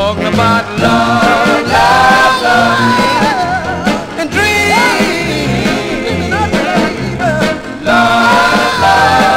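Music: a 1961 R&B dance record playing loud, a wavering lead melody over a pulsing bass line.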